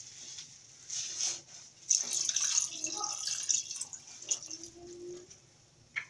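Water poured into a steel cooking pot of tomato sauce and meat, splashing in from about a second in, heaviest around two seconds, then thinning out near the end.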